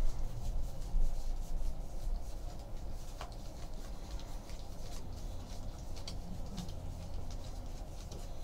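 Baseball trading cards being handled and slid against one another: soft rubbing with light scattered ticks, over a steady low hum.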